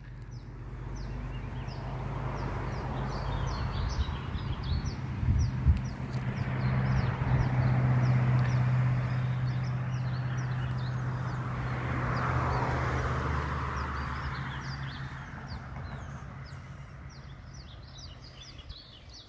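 Small birds chirping over and over in short, high notes, over a low droning hum that swells to its loudest around the middle and fades away toward the end.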